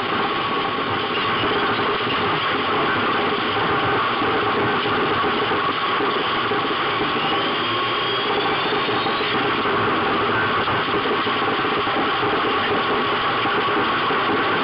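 Autocross car's engine running hard, heard from inside the cabin: a loud, steady noise with little change in level.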